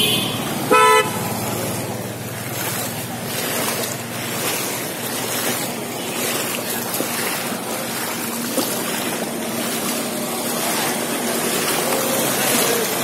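A vehicle horn toots once, short and loud, about a second in. After it a vehicle engine runs steadily under an even wash of noise as traffic moves through the floodwater.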